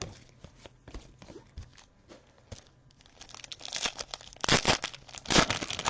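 A foil pack of Panini Playoff football cards being handled and torn open: soft card ticks at first, then louder crinkling of the wrapper, with two sharp tearing bursts near the end.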